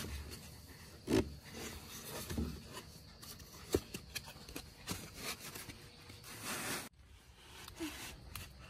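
Foam pool noodles rubbing and scraping against each other and the plastic slide as they are twisted and knotted together, with a few sharper knocks about a second in and again near four seconds.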